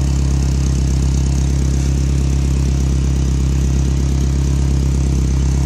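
Toyota truck engine idling steadily, with an exhaust leak at the catalytic converter that the exhaust-wrap patch has not sealed.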